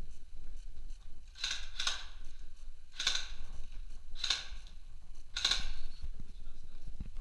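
Five sharp single shots from an airsoft rifle in a bare concrete corridor: the first two close together, the rest about a second apart.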